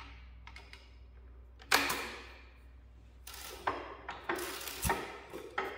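Irregular metallic clicks and clacks from an antique hit-and-miss engine's igniter trip gear and flywheel being worked by hand, the loudest about two seconds in and several more close together near the end.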